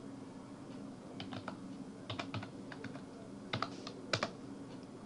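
Computer keyboard typing: short clusters of a few sharp keystrokes, about one cluster a second, with pauses between, over a faint steady hum.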